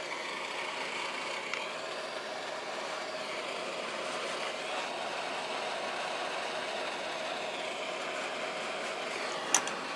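Hot-air heat gun blowing steadily, shrinking heat-shrink sleeving over freshly soldered power-cord joints. A sharp click about nine and a half seconds in.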